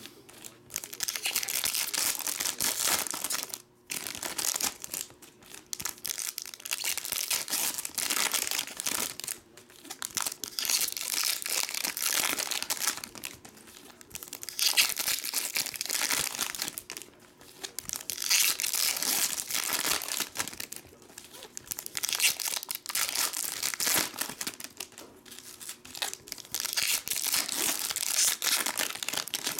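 Foil wrappers of 2018 Bowman Chrome baseball card packs crinkling and tearing as the packs are ripped open one after another, in repeated bursts with short pauses between.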